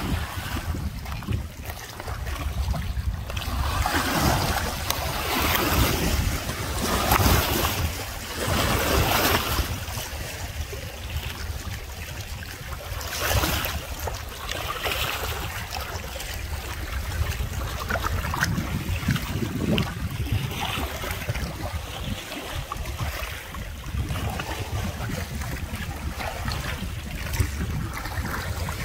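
Wind buffeting the microphone: a steady low rumble with gusts of rushing noise, strongest from about four to ten seconds in.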